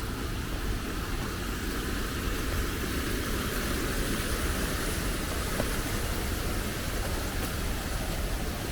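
Steady rain hiss with a low rumble underneath and a few faint drop ticks.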